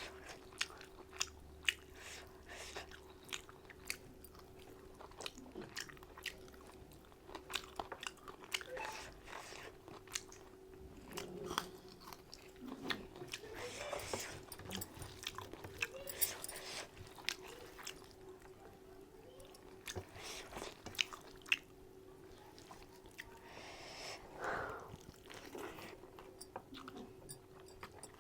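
A person chewing and biting into mutton curry close to the microphone, with many short sharp mouth clicks and some crunching. A faint steady hum runs underneath.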